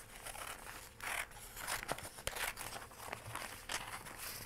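Scissors snipping through a folded double sheet of newspaper, several short cuts in a row at an uneven pace.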